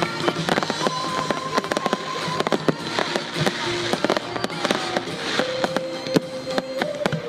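Fireworks display: ground fountains and aerial shells going off, a dense, continuous run of sharp cracks and pops.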